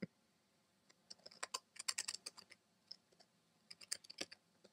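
Typing on a computer keyboard: quick runs of key clicks in two bursts as a short phrase is typed, after a single sharp click right at the start.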